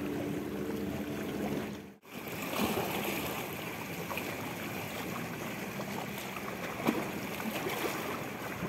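Small sea waves lapping and trickling, with a few faint ticks. For the first two seconds a steady low hum sits under the water sound, and it cuts off abruptly at a cut.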